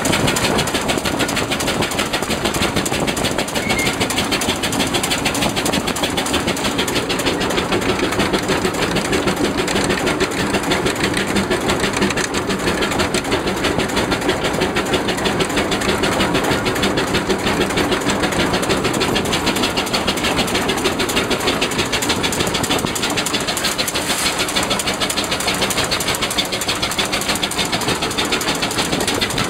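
Baker steam traction engine working under load as it pulls a gang plow, heard close up from the footplate: a loud, steady, rapid mechanical beat that runs on without a break.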